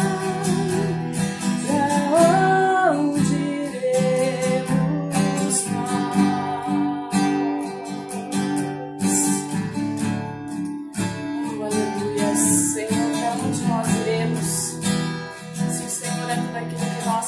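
Acoustic guitar strummed in steady chords, with a woman singing over it. Her voice is clearest over the first few seconds.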